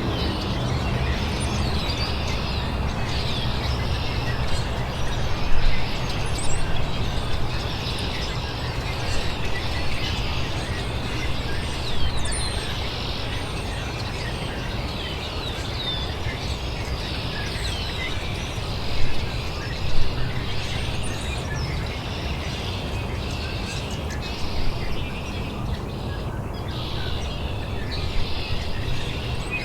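Birds chirping and calling throughout, many short high chirps with a few louder calls, over a steady low outdoor rumble.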